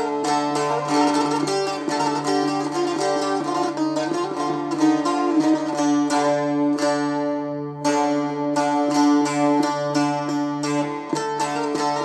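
Solo bağlama (long-necked Turkish saz) played with a plectrum: a folk melody picked in quick strokes over steadily droning open strings. About two-thirds of the way through, the strokes stop for about a second while the notes ring out, then the picking resumes.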